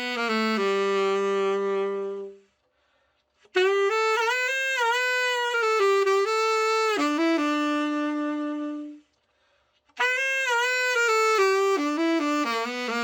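Burden A-35 tenor saxophone, freshly overhauled, playing a slow melody with vibrato in three phrases, each ending on a held note, with short breath pauses between them.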